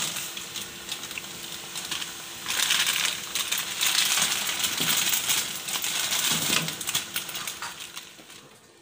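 Water boiling in a wok with instant noodles in it, a steady bubbling hiss, with a plastic seasoning sachet crinkling as it is squeezed over the pan. The sound fades away near the end.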